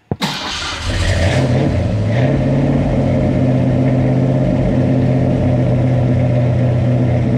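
1965 Ford Fairlane's 289 V8 cold-starting: a click, then the engine catches about a second in and runs steadily, with the choke held open.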